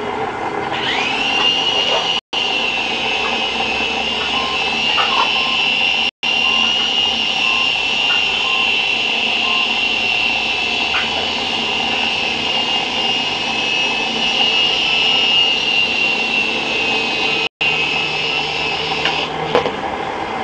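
JinXinDa 325 RC helicopter's motor and rotor spooling up about a second in to a steady high whine, then winding down near the end. The sound cuts out briefly three times.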